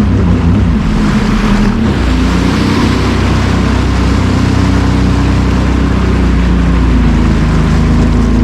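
Sea-Doo personal watercraft engine running under way, with the rush of water and wind. About two seconds in the engine note shifts, then holds at a steady pitch.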